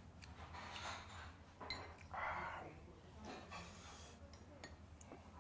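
Eating sounds: a few light clicks of metal chopsticks against dishes, faint chewing, and a short breath through the nose about two seconds in.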